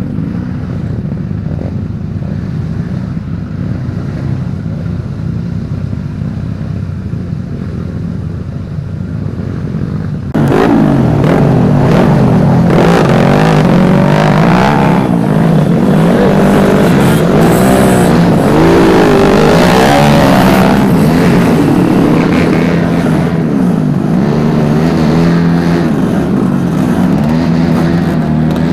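Trail motorcycle engines running, the pitch rising and falling with the throttle; about ten seconds in the sound turns suddenly louder, with engines revving close by.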